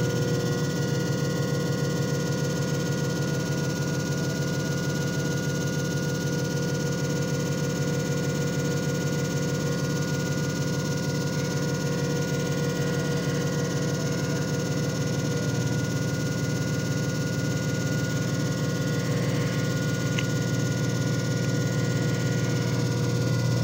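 JFJ Easy Pro disc repair machine running a repair cycle: a steady motor hum and whir, with several constant tones over it.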